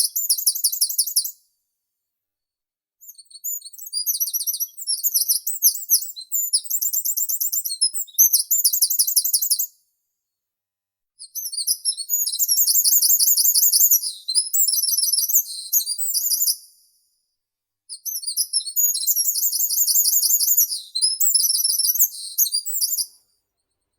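A meadow songbird singing: long phrases of rapid, high-pitched repeated chirps, each lasting a few seconds, broken by short silent pauses.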